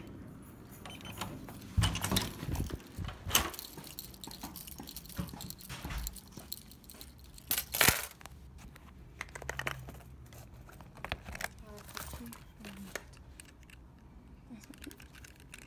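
Handling noise as small objects are picked up and moved about: a run of clicks, knocks and rustling, with the loudest knocks about two and eight seconds in.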